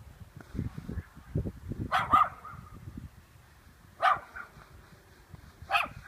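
A dog barking in short single barks: a quick double bark about two seconds in, then one bark about two seconds later and another near the end. Low rumbling noise runs under the first two seconds.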